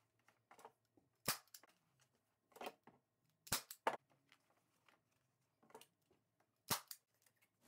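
A manual staple gun firing staples through upholstery fabric into a plywood chair seat: four sharp, separate snaps, the last about two-thirds of the way in, with faint handling ticks of fabric and board between.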